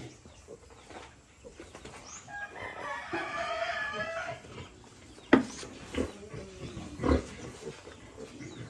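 A rooster crowing once, about two to four seconds in. It is followed by three short, sharp knocks, the first being the loudest sound.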